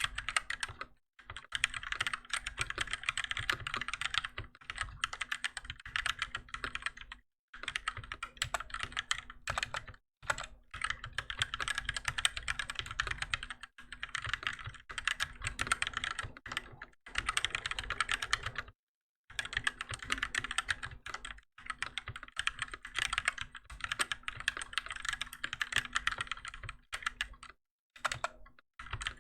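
Typing on a Keychron K6 mechanical keyboard with Gateron Red linear switches: rapid keystroke clacks in long runs, broken by several short pauses. A faint steady hum sits underneath.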